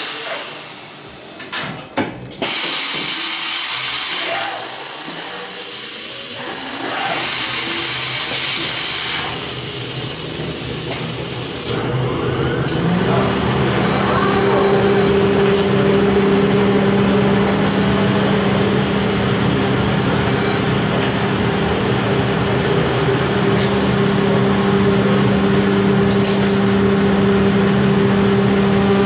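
CNC router working through an automatic tool change: a few sharp clunks, then a steady loud rushing noise. About halfway through, the spindle runs up and settles into a steady hum with a higher overtone.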